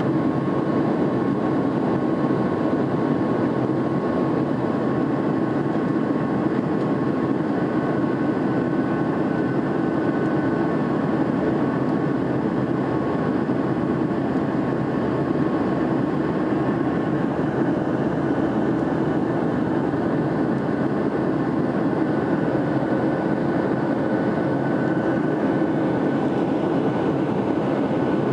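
Steady engine and airflow noise inside a jet airliner's cabin as it climbs out after takeoff, with a faint high steady hum above it.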